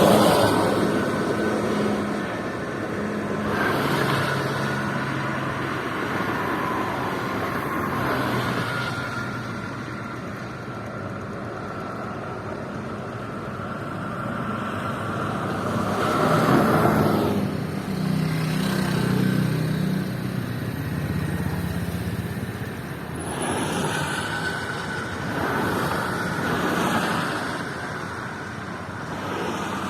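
Toll-road traffic: a steady stream of vehicles passing at speed, tyre and engine noise swelling and fading as each one goes by, the loudest passes at the very start and about halfway through, over low engine hum.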